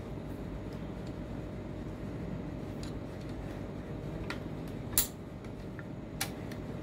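A few sharp metallic clicks of a screwdriver and hex key against the needle clamp of a bag closer sewing machine as the new needle is tightened in, the loudest about five seconds in, over a steady low hum.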